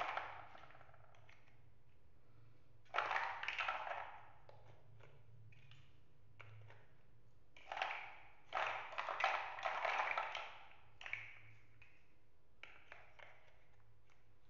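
Chunky plastic building blocks clacking and clicking against each other as they are handled and pressed together. The clatter comes in short bursts, with the longest run about eight seconds in and a few light clicks near the end.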